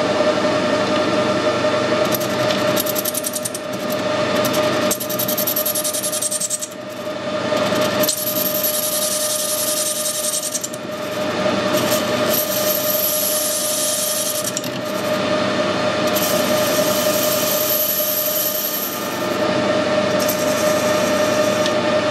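Metal lathe running with a steady whine while a sharp turning tool takes a light cut off a brass bush, a high hiss from the cut coming and going.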